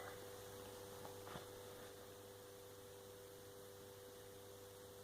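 Near silence with a faint steady electrical hum: two steady tones and a low drone over light hiss, with one tiny tick about a second and a half in.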